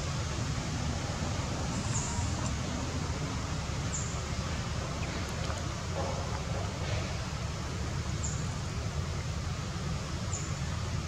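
Steady outdoor background noise with a low rumble, and a few faint, short high chirps about every two seconds.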